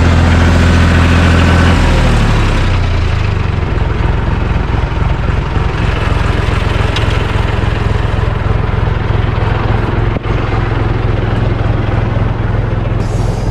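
John Deere 350 crawler dozer's engine running. About two seconds in it drops in pitch and level, then runs steadily at a lower speed.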